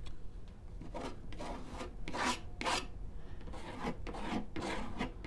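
Oil pastel stick scrubbed back and forth across paper, a run of rubbing strokes roughly two a second that starts about a second in and pauses briefly midway.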